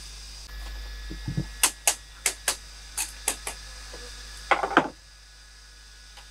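Sharp knocks of a hand tool striking bamboo as a woven bamboo wall is worked, about eight hits over two seconds, then a brief clatter of bamboo strips.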